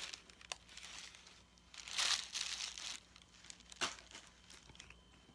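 Gift wrapping crinkling and rustling in the hands during unwrapping, in a few short bursts, the longest about two seconds in, with a sharp click a little before four seconds in.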